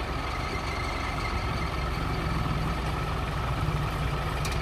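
Massey Ferguson 240 tractor's three-cylinder diesel engine idling steadily.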